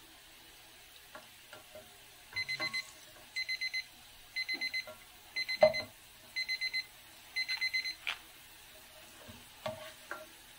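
A timer alarm going off: six groups of four quick high beeps, about one group a second, starting about two seconds in. A plastic spatula knocks against the nonstick pan several times, loudest about halfway through, over a faint sizzle of carrots frying in oil.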